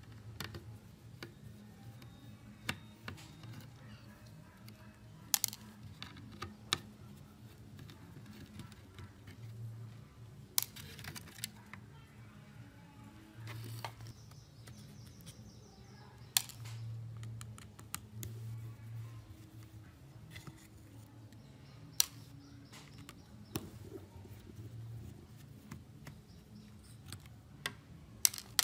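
Irregular sharp clicks, taps and knocks of a disassembled plastic desk telephone and its circuit boards being handled and prodded with a metal screwdriver, over a low steady hum.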